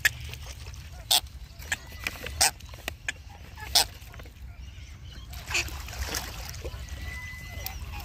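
Birds giving short, harsh calls, about six in the first four seconds and a few fainter ones later, over a steady low rumble.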